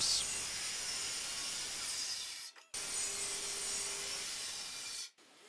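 Handheld circular saw running and cutting through 18 mm plywood along a guide track. The sound breaks off abruptly for a moment about two and a half seconds in, then goes on until it stops sharply near the end.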